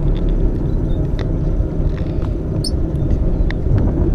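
Steady low rumble of wind buffeting the phone's microphone on a boat under way, with a few faint ticks on top.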